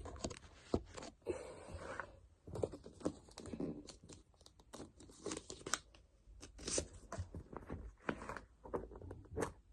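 Plastic blind-bag packets being torn open and crinkled by hand, a run of irregular sharp crackles and rips.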